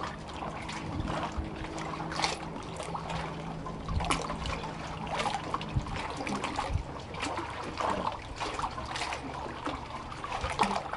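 Sea water lapping and splashing close by, small irregular splashes and trickles around inflatable paddleboards and a swimmer.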